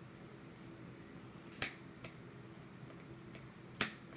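Freshly made glue-and-Tide slime being handled, giving two sharp sticky clicks about two seconds apart, with a fainter click between them.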